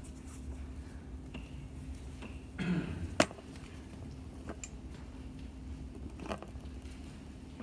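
A few scattered knocks and clicks over a low steady hum; the loudest is a single sharp click about three seconds in.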